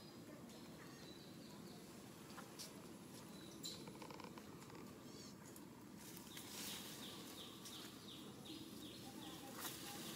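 Faint outdoor ambience with a steady low hiss; about halfway through, a run of quick high chirps, about three a second, goes on for some three seconds.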